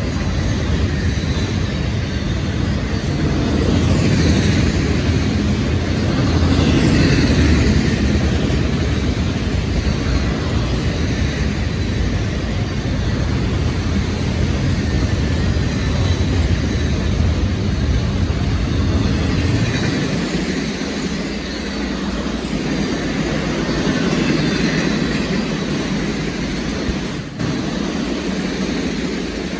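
Freight train of autorack cars rolling past: a steady rumble of steel wheels on rail, a little louder between about four and eight seconds in.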